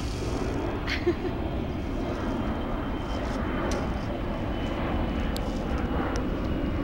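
A steady low rumble of outdoor background noise, growing slightly louder, with a few faint clicks.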